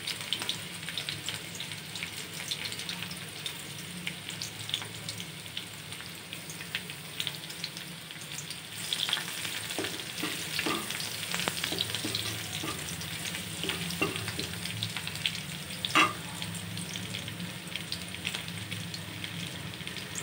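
Garlic and green chillies sizzling and crackling as they fry in hot oil in an aluminium kadai, stirred with a wooden spatula that scrapes against the pan. A single sharper knock comes about three-quarters of the way through.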